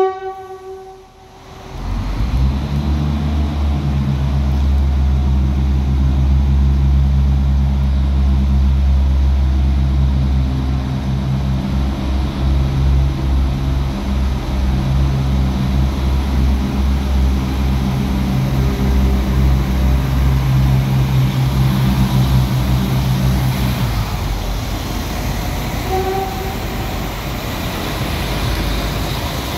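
The tail of an Irish Rail ICR (22000 Class) diesel multiple unit's horn blast, then its underfloor diesel engines running with a loud, steady low drone as the train comes into the platform. The drone cuts off suddenly about 24 seconds in, and a brief tone sounds a couple of seconds later.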